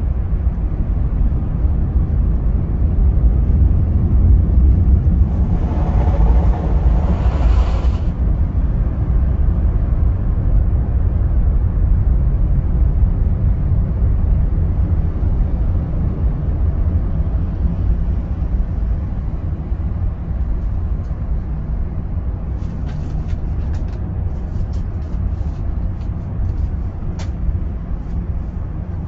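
Steady low rumble heard from inside a car moving through a car wash tunnel, with a brief hiss about six seconds in and scattered light ticks near the end.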